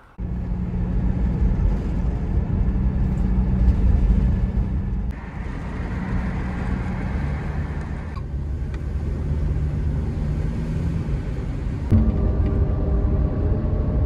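Car driving on the road, a steady low engine and tyre rumble heard from inside the cabin. It changes abruptly a few times, at about five, eight and twelve seconds.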